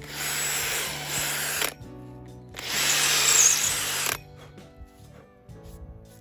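Electric drill boring into a wooden stump in two bursts of about a second and a half each, with a short pause between, over background music.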